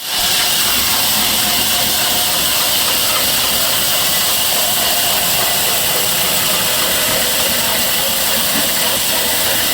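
Steady, loud hiss of noise with no change in level.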